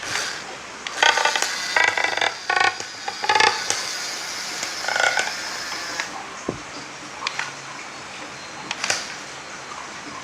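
Small robot's electric drive motors whining in short, uneven bursts over a steady background noise while it pulls a load in a pulling-strength test. There are a few clicks near the end.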